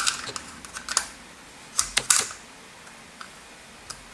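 Flat-blade screwdriver prying at the plastic snap clips of an in-wall dimmer's housing, giving sharp plastic clicks: a loud one at the start, a few around one and two seconds in, and fainter ticks later.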